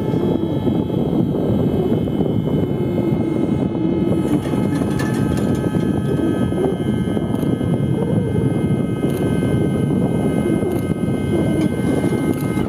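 Aircraft turbine engine running: a steady roar with several high, steady whining tones above it, a few more joining about four seconds in.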